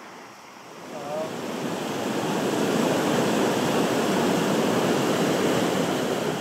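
A steady rushing noise, like wind or moving water, swells up about a second in and holds at a constant level.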